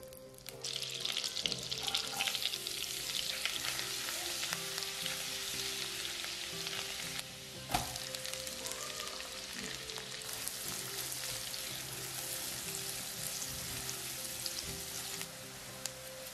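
Butter melting in hot oil in a nonstick wok, sizzling, then diced onion frying in the butter, with a steady crackling hiss and one sharp knock about eight seconds in.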